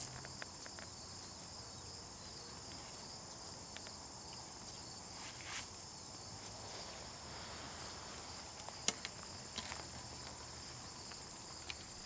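Insects chirring steadily in a high, even trill, with a few scattered footsteps and short sharp knocks from handling the wooden hive lid, the loudest knock about nine seconds in.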